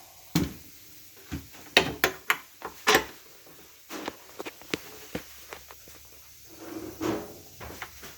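A string of irregular knocks and clatters as dryer parts and tools are handled during disassembly, the loudest few in the first three seconds and softer ones after.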